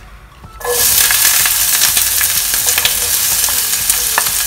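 Diced red onion dropping into hot oil in a stainless steel frying pan: a loud sizzle starts suddenly about half a second in and carries on steadily, with light clicks and scrapes of a wooden spoon pushing the onion off a plate.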